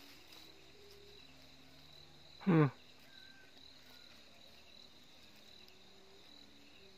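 Faint night chorus of crickets with a steady high trill. About two and a half seconds in, a brief loud vocal sound slides down in pitch.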